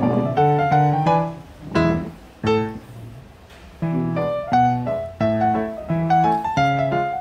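Background piano music: a gentle run of struck notes and chords that thins to a near pause midway, then picks up again.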